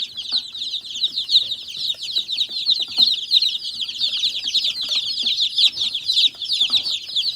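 A brooder full of baby meat chicks peeping continuously, many high chirps overlapping into a dense chorus, with faint taps underneath.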